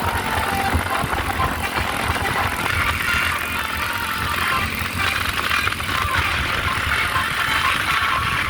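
Bus engine running steadily among road traffic noise.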